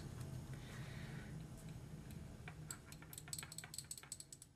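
Quiet room with a steady low hum. From about halfway through, a run of faint, quick clicks, several a second, that dies away near the end.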